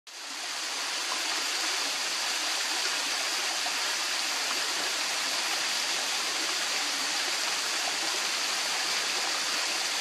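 Small waterfall spilling down a rock ledge: a steady rush of falling water that fades up from silence over about the first second.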